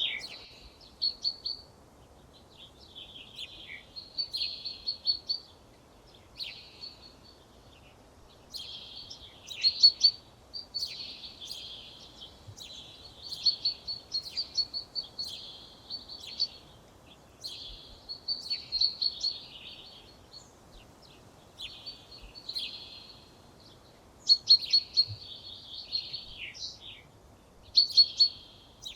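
Songbirds singing: short, chirpy, trilling phrases repeated every second or two, with brief pauses between them, over a faint background hiss.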